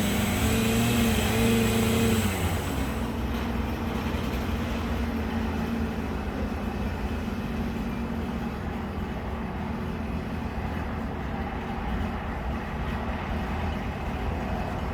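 Gasoline chainsaw running in a chainsaw mill. About two seconds in its pitch drops, then it runs on steadily at a lower pitch.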